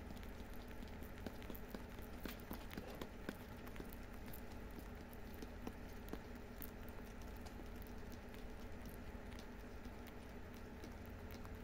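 Lop-eared rabbits chewing dry hay: a steady run of quick, irregular crisp crunches and small clicks over a faint low hum.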